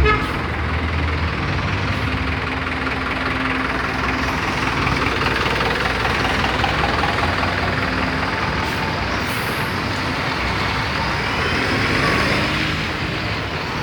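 Street traffic at a standstill: bus and truck engines idling over a steady wash of road noise.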